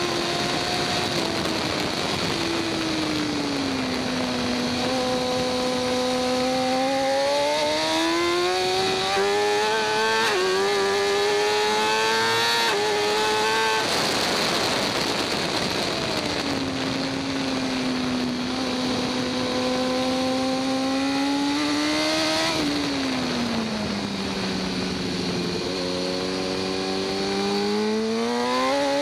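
2014 BMW S1000RR inline-four superbike engine heard from onboard at speed. Revs drop about a second in, then climb steadily with two quick upshifts. A rush of wind noise follows midway, then the revs rise and hold, fall sharply a little past twenty seconds in, and climb again near the end.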